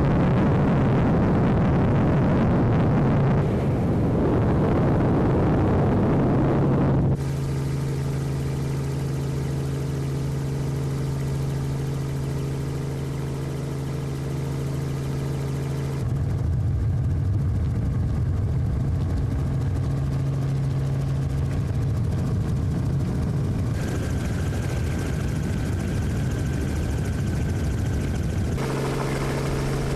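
Aircraft engine running steadily, heard from on board: a constant low drone with a noisy rush over it. The tone and loudness jump suddenly several times, where one stretch of recording gives way to another.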